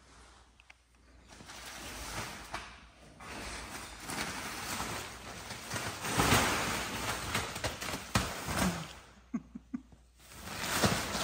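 Rustling and scuffling of pet monkeys playing in a play tunnel, swelling and fading in waves, with a few short clicks near the end.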